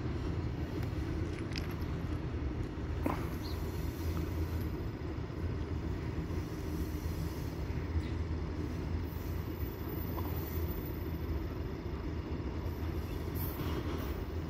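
Covered goods wagons of a freight train rolling past: a steady low rumble of steel wheels on the rails.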